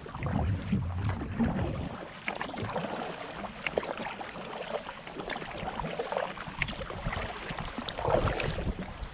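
Kayak paddle strokes through calm sea water: the blades of a Werner double-bladed paddle dipping and pulling, with many small drips and trickles of water falling off the raised blade. There are heavier low swishes in the first two seconds and again about eight seconds in.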